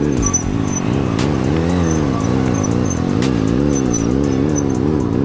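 Motorcycle engine held at steady mid revs during a wheelie, the pitch rising and falling about twice a second as the throttle is worked to keep the bike balanced on its back wheel.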